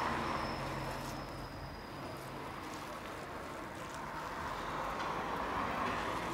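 Street traffic noise, a steady rush that swells at the start and again about five to six seconds in.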